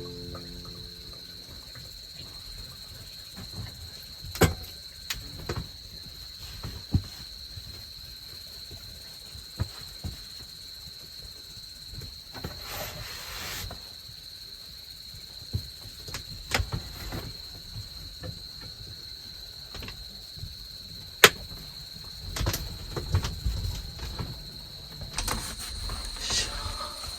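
Autumn crickets trilling steadily in a high, even tone, with scattered clicks and knocks of things being handled and put away; the sharpest click comes about three-quarters of the way through.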